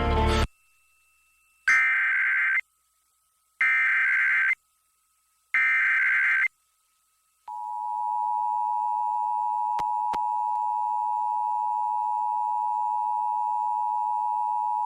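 Emergency Alert System tones: three bursts of SAME header data, each about a second long and about a second apart. About seven and a half seconds in, the steady two-tone EAS attention signal starts and holds.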